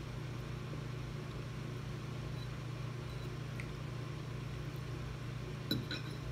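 A steady low hum, with one light clink of a fork against the ceramic noodle bowl near the end.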